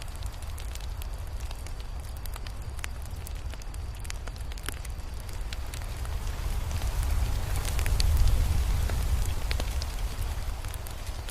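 Crackling fire: scattered sharp pops and snaps over a steady low rumble, which swells louder in the second half and eases off again near the end.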